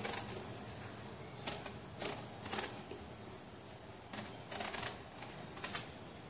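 Kitchen knife cutting through a brinjal (eggplant) and knocking on a wooden chopping board: several short cuts at irregular intervals.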